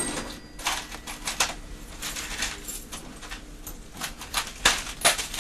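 Paper rustling and crinkling as a shopkeeper wraps a purchase at the counter, with irregular small sharp clicks from handling at the counter.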